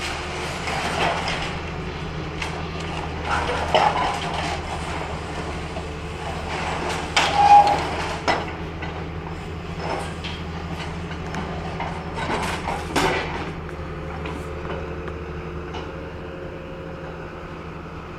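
Caterpillar tracked excavator's diesel engine running steadily while it demolishes a building, with several crashes and scrapes of falling masonry and metal debris. The loudest crash comes about seven seconds in with a brief squeal.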